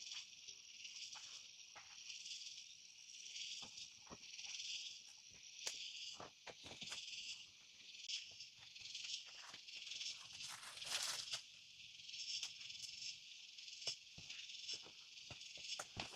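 Rainforest insect chorus, a steady high buzzing drone, with scattered light clicks and knocks and a longer rustle about eleven seconds in.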